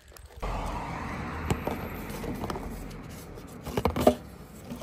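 Small cardboard box pushed through the letter slot of a red pillar post box, with scraping and a few knocks, the loudest about four seconds in, over steady outdoor background noise.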